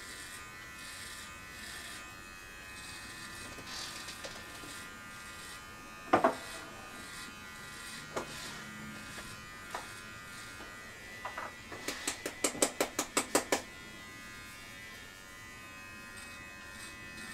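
Manscaped Lawn Mower 4.0 battery body trimmer running with a steady electric buzz as it is drawn over belly hair. There is a sharp knock about six seconds in, and a quick run of about a dozen clicks near two-thirds of the way through.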